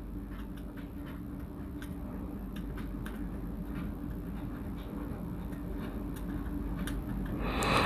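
Felt-tip marker writing on paper: faint scattered scratches and taps of the pen strokes over a steady low hum.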